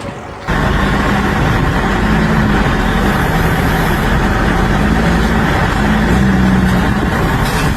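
A heavy vehicle or machine engine running steadily with a low, wavering hum, coming in abruptly about half a second in.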